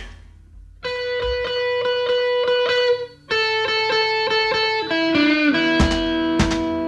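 Electric guitar playing long held, ringing notes over quick, evenly repeated picking, as a blues-rock song gets under way. The note breaks off briefly about three seconds in, then steps lower twice.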